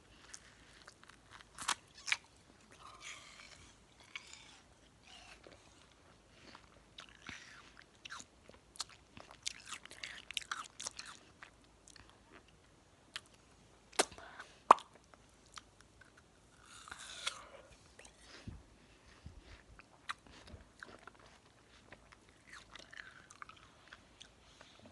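Watermelon being bitten and chewed close to the microphone: wet, crunchy bites and mouth sounds at irregular intervals, with a couple of sharp clicks past the middle.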